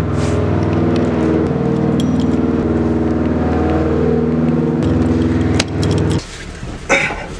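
Background music of sustained synth chords that changes chord every half second or so, then cuts off about six seconds in, followed by a brief clatter near the end.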